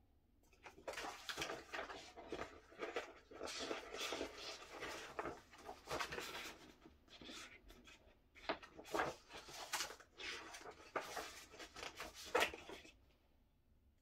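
Pages of a large LP-sized paper booklet being turned and handled: repeated rustles and crackles of paper that stop and start, with one sharper page snap near the end.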